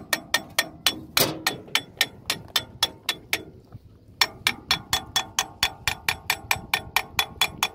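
Rapid metal-on-metal tapping, about four to five sharp ringing strikes a second with a short pause near the middle: a spanner knocking on the steel core barrel of a core cutting machine to free the bituminous core from it.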